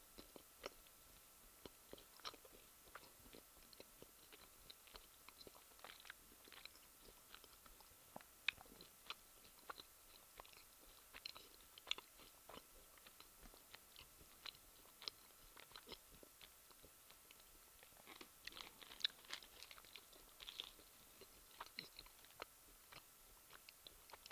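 Faint, close-miked chewing of a Snickers bar: irregular soft clicks and smacks of the mouth, busier for a few seconds near the end.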